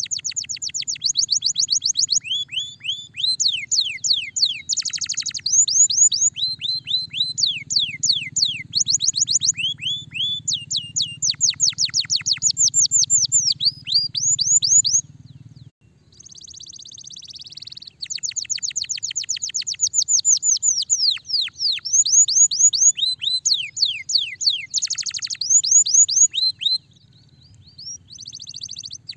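Domestic canary singing: fast rolls of rapidly repeated, downward-sliding whistled notes, one roll after another, with a pause of about two seconds just past the middle.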